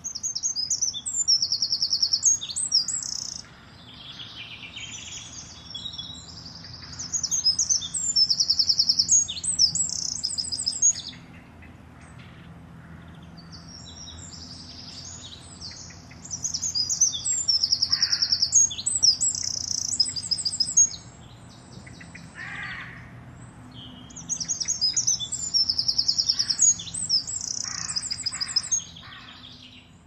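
Eurasian wrens singing: four loud bursts of high, rapid trilling song, each a few seconds long, with short pauses between them.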